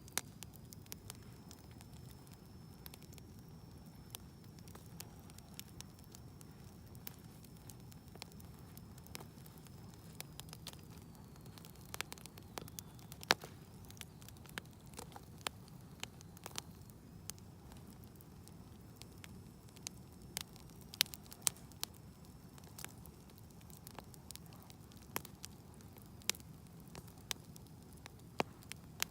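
Wood fire burning in a fireplace, crackling with irregular sharp pops over a low steady rumble. A faint high thin whistle wavers through parts of it.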